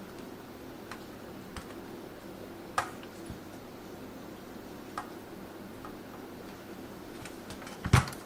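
Scattered light clicks and taps at irregular intervals over a steady low hum, with a sharper knock just before the end.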